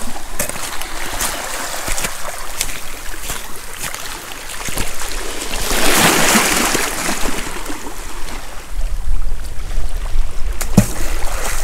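Seawater trickling and lapping among wet rocks at low tide, with a louder rush of noise about six seconds in and scattered small clicks, one sharper knock near the end.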